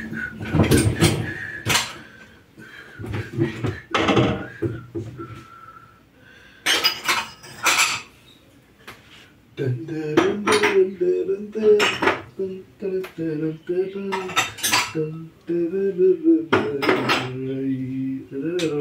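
Dishes and cutlery clinking and clattering as they are handled and set down, a run of sharp knocks and clinks.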